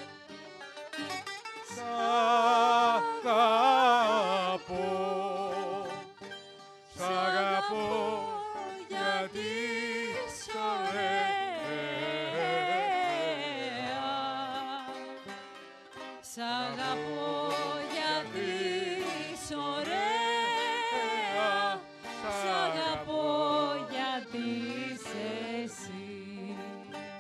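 Rebetiko music played on plucked string instruments, its melody lines wavering and gliding in phrases that swell and fall back.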